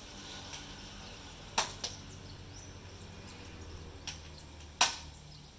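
Sharp, snappy clicks from a toy pistol being worked by hand: five short clicks, the loudest about one and a half seconds in and near the end.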